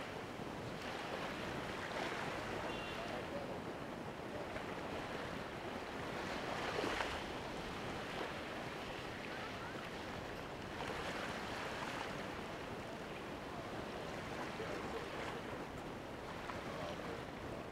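Small waves washing in at the water's edge, a steady rush that swells and fades every few seconds.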